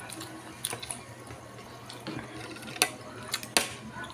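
Wet chewing and lip-smacking of a man eating a mouthful of rice by hand: a few separate sharp clicks, the loudest about three seconds in, over a faint steady low hum.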